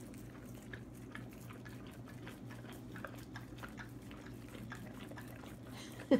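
Two Akita dogs licking whipped cream off a wooden floor: small wet, irregular tongue clicks and smacks over a low steady hum. Just before the end a short loud voice sound.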